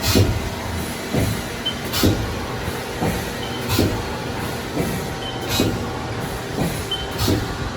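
Haas ST-30Y CNC lathe running under power, with a sharp mechanical knock repeating about once a second over a steady machine hum.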